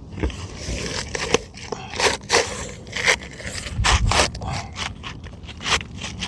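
Asphalt 3-tab roofing shingle scraping against the gritty shingles around it as it is slid and worked into place, in a run of short, irregular scrapes and crackles.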